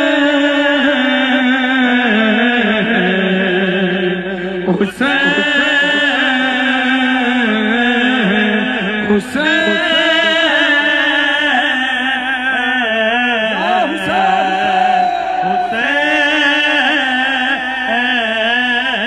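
Gathering of mourners calling out together in long, drawn-out chanted cries, raised on the name of Mola as a call to the Imam. There are four long calls, each held for several seconds, with short breaks between them.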